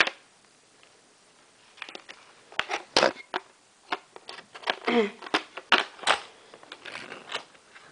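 Irregular clicks and light knocks of small parts being handled close to the microphone, starting about two seconds in, with a brief voice sound about five seconds in.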